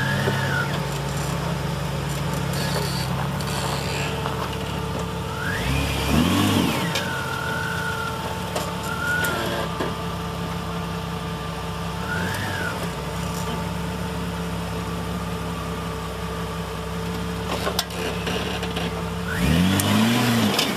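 Off-road 4x4's engine idling and crawling, with a higher whine rising and falling now and then, and two short blips of throttle, about six seconds in and near the end, as it bumps at a rock ledge.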